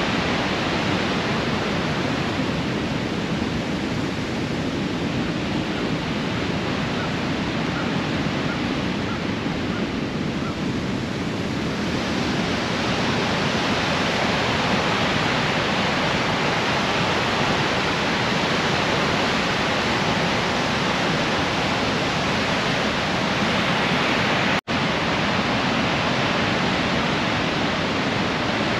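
Steady rushing of a large river waterfall, the Great Falls of the Androscoggin, running with heavy white water. It cuts out for an instant about three-quarters of the way through.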